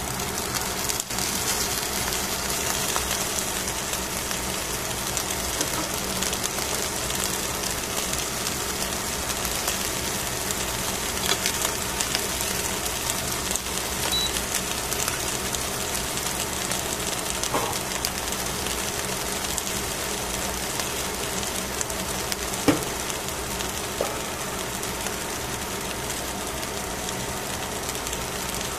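Fish fillets cooking on foil over a wire grill rack: a steady sizzling hiss over a low hum, with a sharp click about 23 seconds in.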